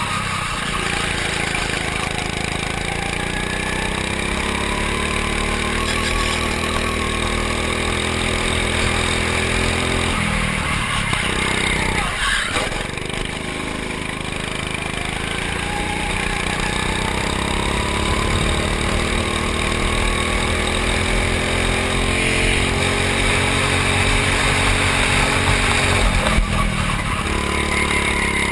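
Go-kart engine heard from on board, running hard with its pitch rising and falling as the kart speeds up and slows for corners. The pitch drops off sharply twice, about a third of the way in and near the end, then climbs again.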